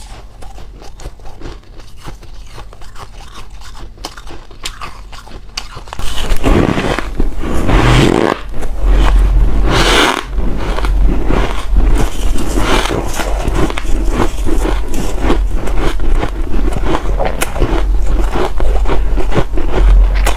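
Ice being bitten and chewed close to the microphone: crackling at first, then from about six seconds in, loud, dense crunching with heavy thuds.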